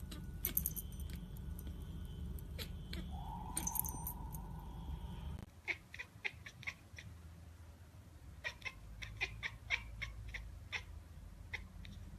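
Kittens vocalising: a short held cry a few seconds in, then a run of short, sharp clicky chirps.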